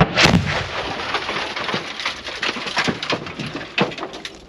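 An explosion at a scrapped car goes off suddenly, loudest just at the start. Debris and dirt then come down for about four seconds as many small knocks and ticks, thinning out toward the end.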